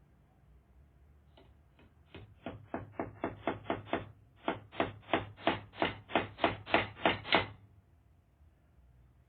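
Hammer driving nails: two light starting taps, then two quick runs of blows about four a second with a short pause between, the later blows louder.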